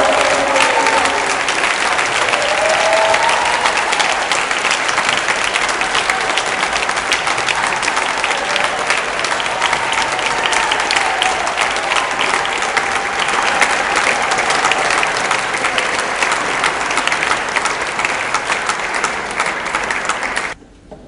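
Large audience applauding at the end of a song, the last held notes of the choir's singing fading out in the first second. The applause is steady and cuts off abruptly just before the end.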